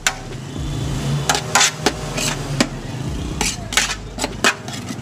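A metal serving spoon scrapes and clinks against a large aluminium biryani pot and a steel plate as rice is scooped out, in about ten irregular sharp strokes. A low steady hum runs underneath.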